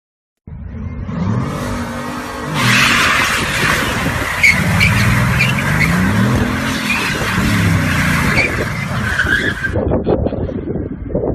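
Car engine revving up and down while the tyres squeal and skid. The tyre noise cuts off near the end, leaving a rough rumble.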